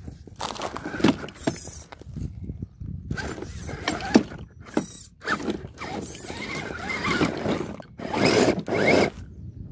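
Electric RC crawler's motor and geared drivetrain whining in several short stop-start bursts of throttle, the pitch rising and falling, with clicks and scrapes as its tyres work over rock. The longest, loudest burst comes near the end.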